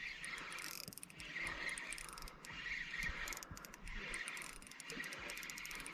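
Fishing reel ticking with rapid ratchet-like clicks as a hooked fish is played and reeled in.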